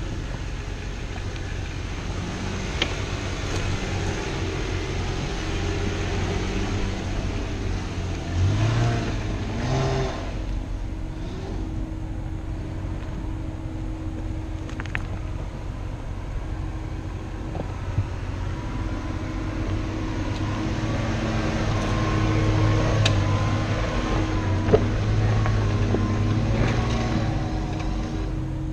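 Off-road 4x4 engine running at low speed while crawling over terrain, with short revs about a third of the way in and a louder stretch near the end, and a few sharp knocks.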